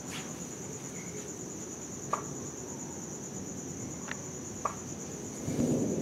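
Crickets chirring steadily at a high pitch over a low rumbling background. There are a few faint sharp clicks, and a brief low rumble swells up near the end.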